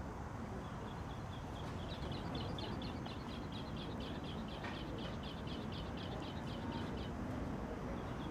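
Quiet outdoor ambience with a small bird chirping in a quick, even run, about three or four chirps a second, for several seconds before stopping.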